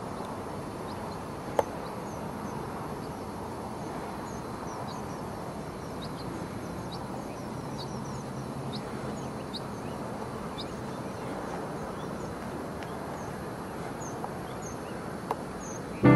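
Outdoor field ambience: a steady low rushing noise with scattered short, high chirps throughout, and a single sharp click about one and a half seconds in.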